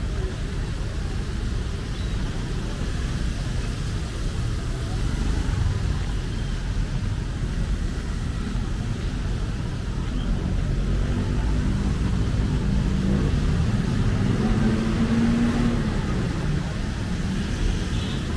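City street traffic: a steady low rumble of passing cars, with one vehicle's engine hum growing louder in the second half.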